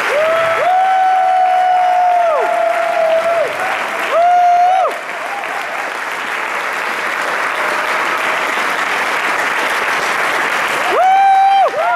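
Audience applauding steadily, with a few long, held pitched cheers or calls rising over it: about half a second in for some three seconds, briefly about four seconds in, and again near the end.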